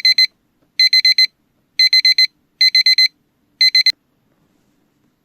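Electronic alarm beeping in quick groups of four short high beeps, about one group a second. It cuts off abruptly partway through a group, with a click, a little under four seconds in.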